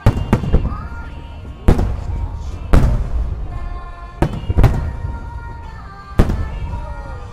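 Aerial firework shells bursting overhead, about eight sharp booms with rumbling echoes, the loudest a little under two and three seconds in, over music playing throughout.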